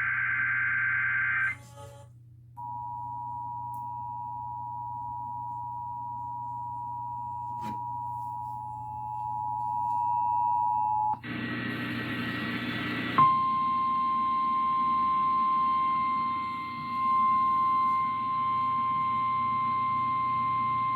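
Emergency Alert System test tones. A data-header burst ends about a second and a half in. Then comes the two-tone EAS attention signal, two steady tones near 853 and 960 Hz sounding together for about eight seconds. After a brief burst of noisy radio audio, a single steady tone near 1050 Hz, the NOAA Weather Radio warning alarm tone, plays for about nine seconds over a hissy broadcast background.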